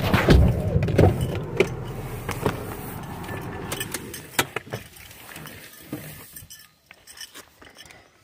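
Low rumble of a car in the cabin dying away over the first few seconds, with a run of clicks and knocks as the car door is opened, leaving quiet open air with a few light clicks.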